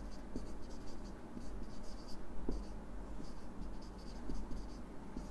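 Marker pen writing on a whiteboard: a run of short scratchy strokes as a heading is written out by hand, over a low steady hum.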